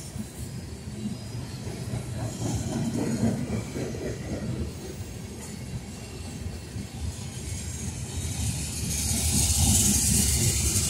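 Freight train of covered hopper cars rolling past at close range: a steady rumble and clatter of steel wheels on the rails. A high hiss swells near the end.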